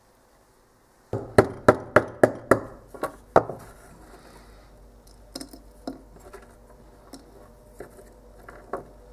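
A small hammer knocking on a lump of orange pigment on a wooden bench to break it up: about seven sharp blows in quick succession, then scattered light clicks and taps as the broken pieces are handled.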